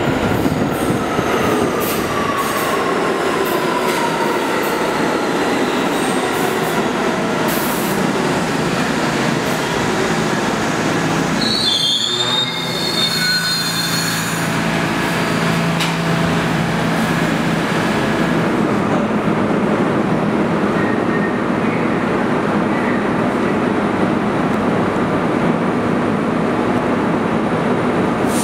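New York City Subway G train pulling into an underground station. Its motors give a whine that falls in pitch as it brakes, a brief high squeal comes about halfway, and then a steady low hum follows as the train stands at the platform.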